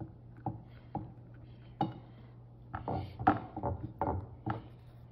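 Hands patting and pressing a lump of Play-Doh flat on a ceramic plate: a string of soft taps and knocks against the plate, spaced out at first and coming faster about three seconds in.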